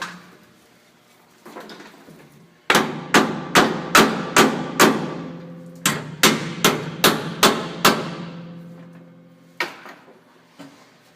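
Hammer blows on metal, two runs of about six and seven strikes, roughly two to three a second, each leaving the steel ringing.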